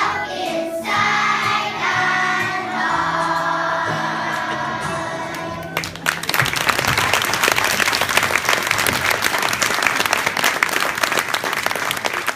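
A group of children singing together with music, stopping about six seconds in. An audience then bursts into applause that carries on to the end.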